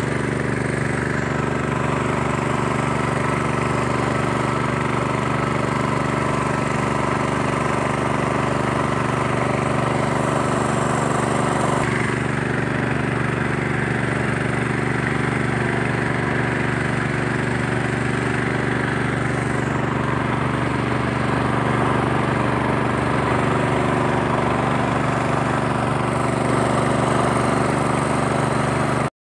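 An engine running steadily at an even pitch, close by, until it cuts off suddenly near the end.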